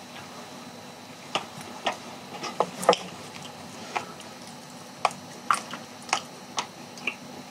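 Wooden chopsticks picking through sauced chicken on aluminium foil: sporadic light clicks and taps, about one or two a second.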